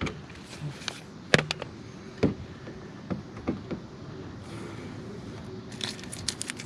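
Scattered light clicks and knocks of hand tools and small hardware being handled, with a quick run of clicks near the end.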